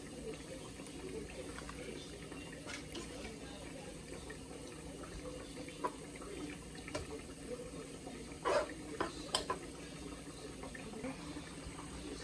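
Pasta simmering in water and evaporated milk in a pot, bubbling steadily. As it is stirred, a spoon scrapes and knocks against the pot now and then, with a quick cluster of three or four knocks a little past halfway.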